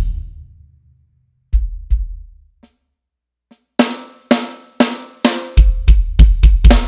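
Electronic drum kit: a pattern ends and dies away, a couple of light hits fall in the pause, then four evenly spaced hits about half a second apart lead into a fast double-bass-drum pattern with snare and cymbals about five and a half seconds in.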